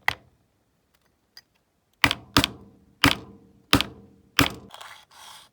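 Sharp metal taps striking the end of a diecast toy car's front axle to peen it over and hold the wheel on: one tap, a pause of about two seconds, then five more in quick succession, each ringing briefly. Softer rubbing and handling noise follows near the end.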